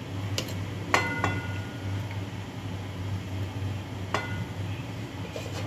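A steel ladle clinks against steel cookware while ladling curry: a few sharp clinks with a short metallic ring, the loudest pair about a second in and another about four seconds in. A steady low hum runs underneath.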